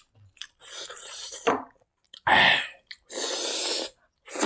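A man eating with his hand breathes hard through the mouth. There is a rush of breath about a second in, a short loud vocal burst around two seconds in, then a steady hiss of air lasting about a second.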